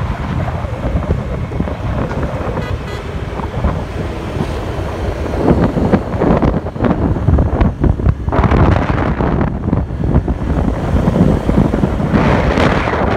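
Wind buffeting the microphone of a camera on a moving vehicle, over road and traffic noise; the rumble swells and fades in uneven gusts.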